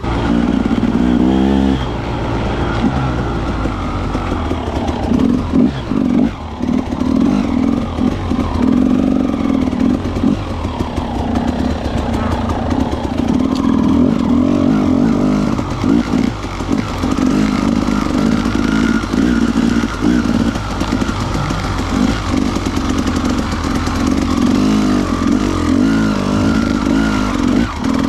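Husqvarna TE300 single-cylinder two-stroke enduro engine heard on board while riding, its revs rising and falling with the throttle, with frequent short knocks and rattles from the bike over the rough trail.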